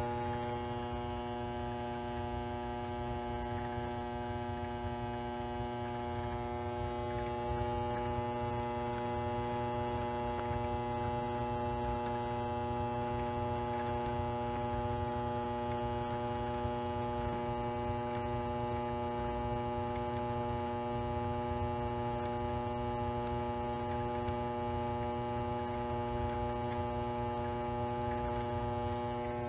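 Grizzly G0765 mini lathe running at low speed with a 5C collet chuck on the spindle: a steady motor and drive hum made of several fixed tones over a low rumble.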